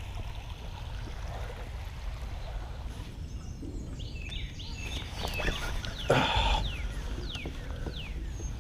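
Birds chirping with short, repeated high calls over a steady low outdoor rumble, with one brief loud noise about six seconds in.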